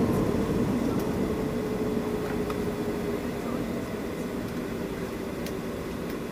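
Cabin noise of a Boeing 737-700 heard from a window seat by the wing: the CFM56-7B jet engines and air conditioning make a steady drone with a faint hum, gradually getting quieter.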